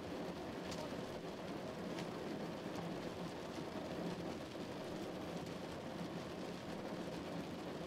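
Steady rain falling against window glass, a continuous even hiss with a couple of sharper drop ticks in the first two seconds.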